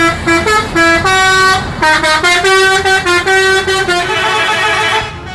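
Multi-tone musical bus horn playing a tune of short held notes that step up and down in pitch. The notes blur into a harsher, buzzier blast near the end.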